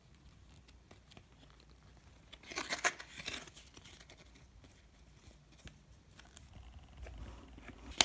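Stacked trading cards sliding and rubbing against each other as they are reordered by hand, with a short spell of scraping about two and a half seconds in and a sharp click near the end.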